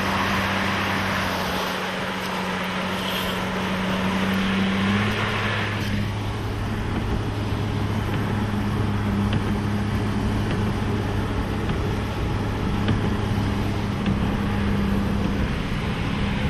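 Truck engine running steadily under load while driving through a mud flow, with a hiss over it that eases about six seconds in. The engine note shifts about five seconds in.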